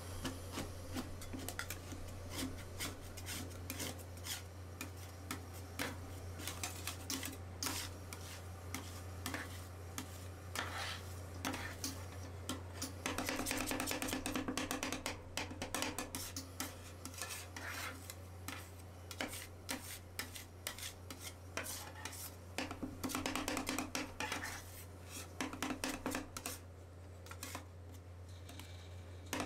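Metal spatulas scraping, spreading and tapping on a stainless-steel cold-plate pan, working an ice cream base with crushed Oreo cookies as it freezes. The strokes come in quick runs and grow louder in two spells, about halfway through and again near the end. A steady low hum runs underneath.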